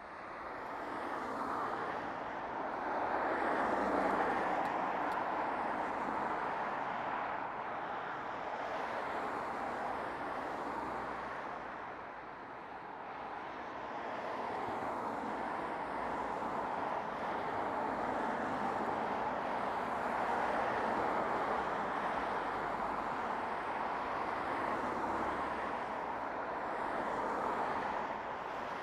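Passing road traffic: a continuous hiss of tyres and engines that swells and eases as vehicles go by, loudest about four seconds in, with a brief lull about twelve seconds in.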